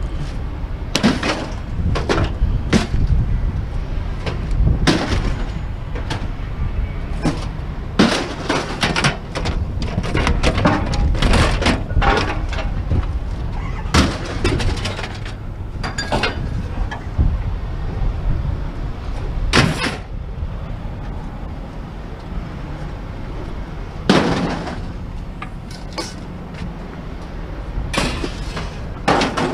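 Repeated knocks, clanks and bangs of hard objects being handled and set down, over a steady low rumble.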